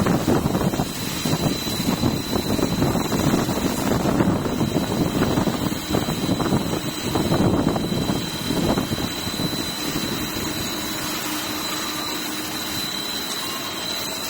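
CNC machining center milling a metal beam clamp: a rough, dense cutting noise over a steady high whine, settling to a smoother, even hum about ten seconds in.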